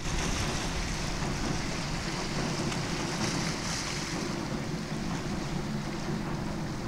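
Steady sea and wind noise, with wind blowing on the microphone.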